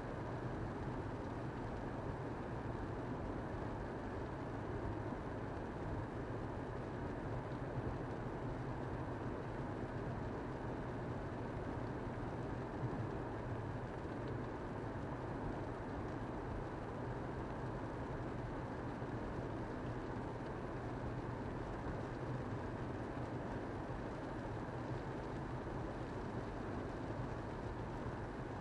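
Steady low rumble of a vehicle in motion, even and unbroken throughout.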